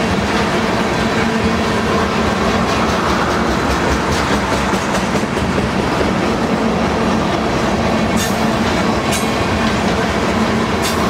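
Railroad tank cars of a long oil train rolling steadily past, steel wheels clattering over the track. A faint rising whine comes about two seconds in and again at the end, and a few sharp clicks come near the end.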